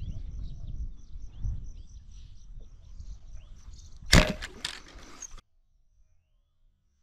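Birds chirping over a low rumble of wind, then a single sharp, loud crack about four seconds in, a speargun being fired, with a short noisy rush after it before the sound cuts off abruptly.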